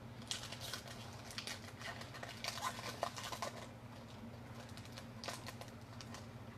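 Soft rustling and light clicks of trading cards and booster-pack wrappers being handled, a cluster of small handling noises about two to three and a half seconds in and a few more near the end.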